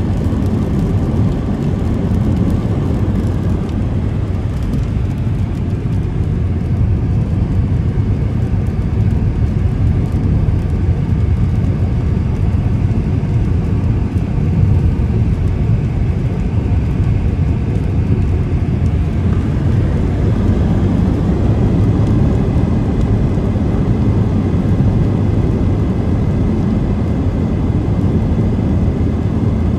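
Steady road noise heard from inside a moving car: engine and tyre rumble on a wet road.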